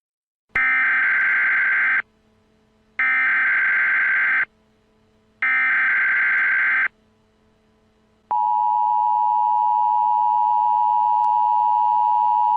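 Emergency Alert System tones: three bursts of SAME header data, each about a second and a half long with about a second between them, then the steady two-tone EAS attention signal starting about eight seconds in.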